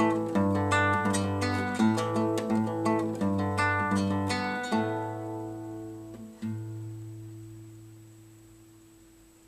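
Acoustic guitar finishing a piece: plucked notes for about five seconds, then a final chord left to ring and slowly die away, with one last note plucked in the middle of the fade.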